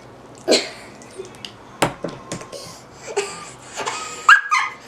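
Homemade slime being squeezed and worked by hand: a string of sharp wet clicks and pops, with a short high squeak near the end.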